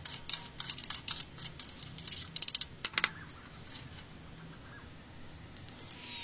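Metal skimmer clicking and scraping against an electric pewter melting pot as dross is skimmed off the molten pewter: a quick, irregular run of sharp clinks over the first three seconds, then quiet. A Dremel rotary tool starts whining at the very end.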